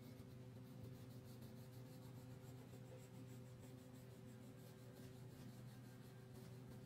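Faint scratching of a wax crayon rubbed back and forth on paper while coloring, over a low steady hum.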